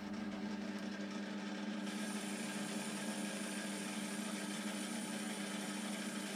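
Metal lathe running steadily with the chuck blank spinning during a light facing cut: a constant low drone with an even hiss above it, and a faint high whine that joins about two seconds in.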